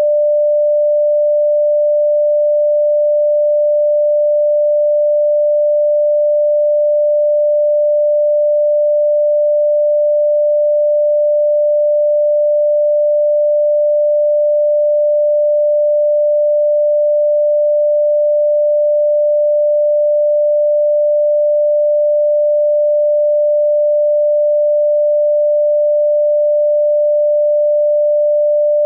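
A single steady, mid-pitched pure electronic sine tone, held unchanged at one pitch and one loud level.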